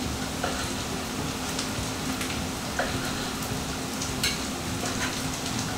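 A knife slicing through a seared porterhouse steak on a wooden cutting board: a few soft scrapes and light taps against the board, over a steady background hiss and low hum.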